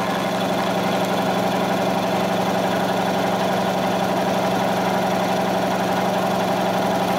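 Speedaire electric air compressor running steadily, its motor and pump filling the tank on house power.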